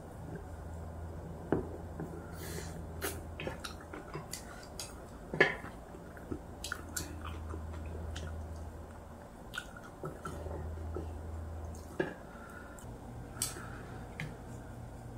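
People eating braised pork back ribs: chewing and sucking at the meat, with scattered clicks of chopsticks and spoons against bowls. A low steady hum runs underneath.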